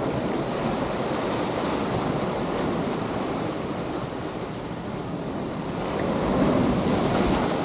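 Ocean surf breaking and washing in, with wind on the microphone; the wash swells louder about six seconds in.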